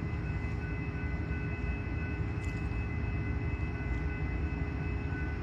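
Train rumbling steadily, with a few faint steady high tones over the rumble.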